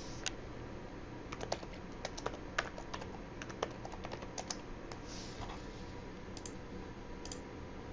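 Computer keyboard typing: a quick run of keystrokes for about three seconds, then a few separate key taps near the end, including presses of the backspace key. A faint steady tone sits underneath.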